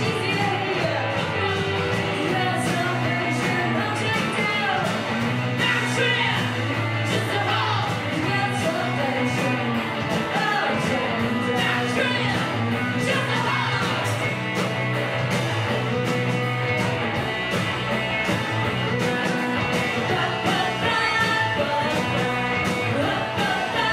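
Indie rock band playing live, with electric guitars and a woman singing.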